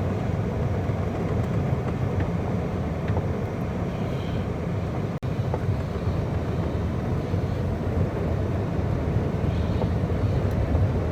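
Steady low rumble of engine and road noise from a moving vehicle, heard from inside it, with a brief dropout about five seconds in.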